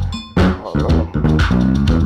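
Electric bass guitar playing a line of quick, sharply plucked low notes, with a brief break about a quarter of a second in.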